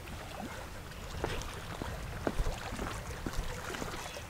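Low, steady outdoor rumble of wind on the microphone, with scattered small clicks and taps through it.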